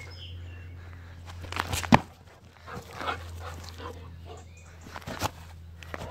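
Golden retriever making a series of short, sharp sounds while playing in the grass, the loudest about two seconds in.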